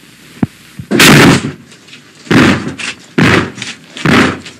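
Heavy blows pounding on an apartment door, four of them roughly a second apart after a single sharp click: police trying to force their way in during a drug raid.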